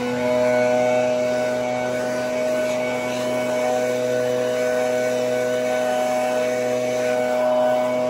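Gas backpack leaf blower running steadily, a constant engine drone with no change in pitch, blowing debris off roof shingles.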